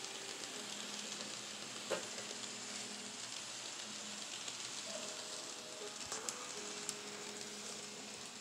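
N scale model trains running by: a steady hiss of small wheels rolling on the track with a faint electric motor hum underneath. A sharp click about two seconds in, and a few more clicks around six to seven seconds in.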